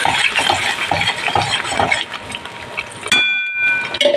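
Wooden spatula stirring and scraping a thick curry in a steel pan. About three seconds in, a sharp knock sets the steel pan ringing briefly, and there is another knock near the end.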